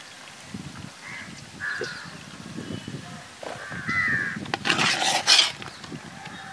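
Crows cawing, a few short harsh caws a second or two apart, with a louder burst of rustling noise about five seconds in.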